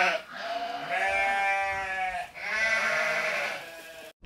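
Sheep bleating: the end of one long bleat, then two more long bleats of about two seconds each, one straight after the other, before the sound cuts off abruptly.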